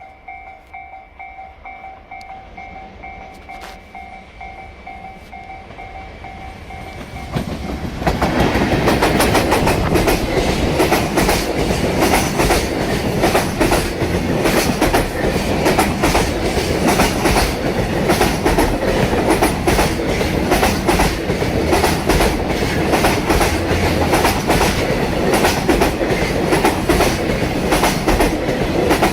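A Japanese level-crossing warning bell dings in a steady, evenly repeating pattern; about eight seconds in, a freight train of an EF210 electric locomotive and Koki container wagons arrives and passes loudly, its wheels clattering hard over the rail joints.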